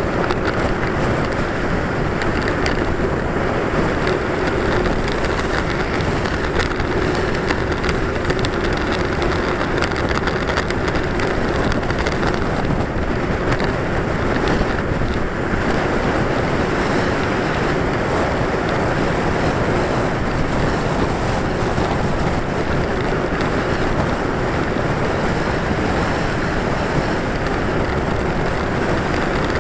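Steady wind rush buffeting the microphone of a camera on a moving bicycle, an unbroken roar of noise with no let-up.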